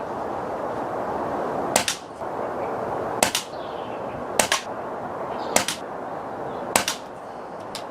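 Air rifle fired five times at a steady pace, about one shot every 1.2 seconds, each report a short sharp crack followed almost at once by a second crack.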